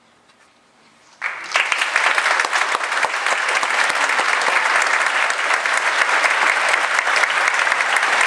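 Audience applause breaking out suddenly about a second in after a brief hush, then holding steady and dense.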